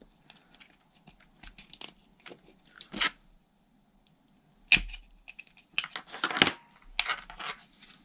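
Small plastic clicks and scrapes as the case of an RC car's electronic speed controller is prised open with a small screwdriver, with one sharp snap a little past halfway, followed by rustling and crinkling as the unit is handled by its wires.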